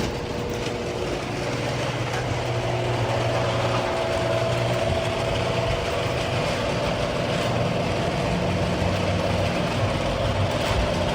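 Residential garage door running on its opener with worn builder-grade rollers: a steady mechanical grind and rattle with a low motor hum and a high, steady tone over it. It sounds like nails on a chalkboard, which is not how a door should sound and is a sign that the rollers need replacing. It cuts off near the end.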